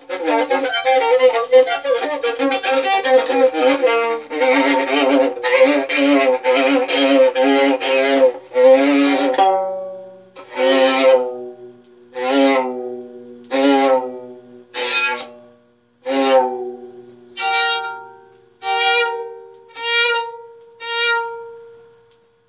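Violin played with a bow. A run of quick notes lasts about ten seconds, followed by single long notes a little over a second apart, each fading away. The last few notes are higher in pitch.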